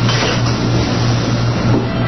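Loud, steady rushing noise over a low hum.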